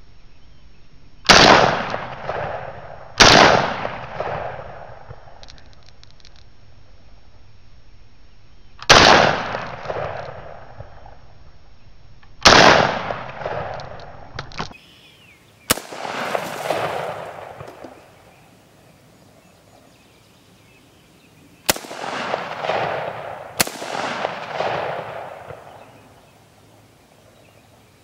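Seven rifle shots, irregularly spaced a few seconds apart, each followed by an echo that trails off over a second or two.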